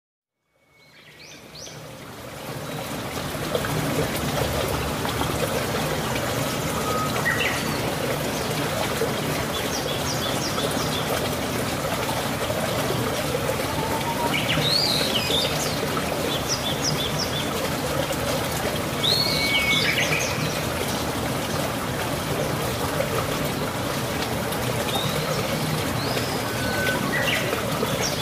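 Birds chirping now and then, with a few swooping calls, over a steady rush of running water that fades in over the first few seconds.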